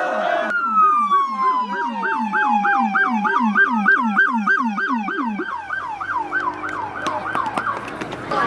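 Vehicle siren, most likely a police car's, sounding a falling wail over a fast yelp that rises and falls about three to four times a second, the yelp thinning out and fading over the last few seconds.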